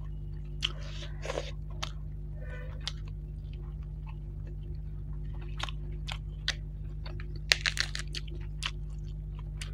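Close-miked mouth sounds of a person chewing fish, with scattered wet smacks and clicks over a steady low hum. A quick cluster of crisp crackles near the end as a cabbage leaf is torn.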